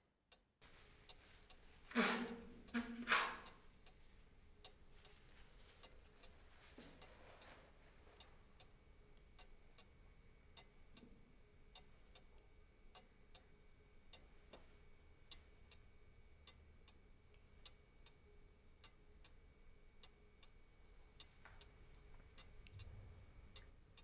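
Clock ticking steadily and faintly in a quiet room. Two short louder sounds come about two seconds in.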